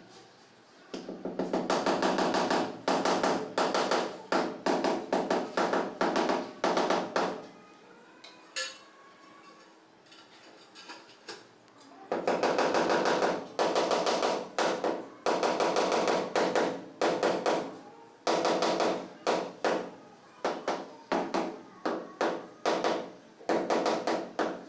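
Rubber mallet tapping a floor tile down into its mortar bed, several quick taps a second, bedding the tile level. It comes in two runs: one of about six seconds near the start, then a lull with only a few knocks, then a longer run from about halfway.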